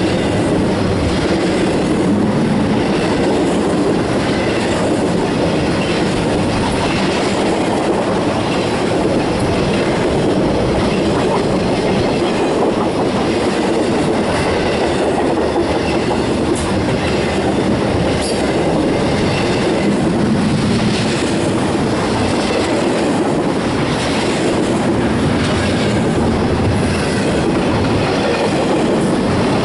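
Intermodal freight cars, trailer flatcars and double-stack container well cars, rolling past close by. Their steel wheels on the rails make a steady, loud rumble with scattered clicks and clacks.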